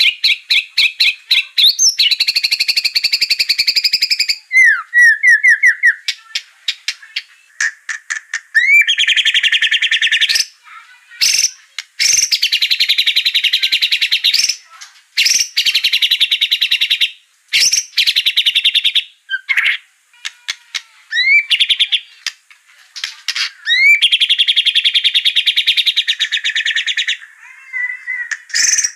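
White-rumped shama (murai batu) singing a fast, excited song: long rapid trills and rattles lasting a few seconds each, broken by short rising whistles and brief pauses. It is a lure song of the kind played to provoke caged shamas into singing.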